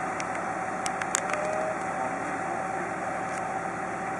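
Heavy-duty wrecker truck's engine running steadily while its crane boom holds a load, with a steady tone over the engine noise and a few light clicks about a second in.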